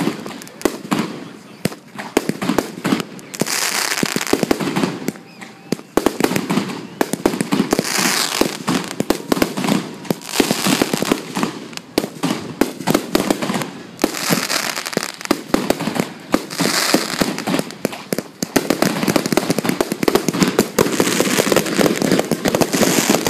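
Aerial fireworks bursting close overhead: a dense run of sharp pops and bangs, with a hissing crackle that swells in waves every few seconds.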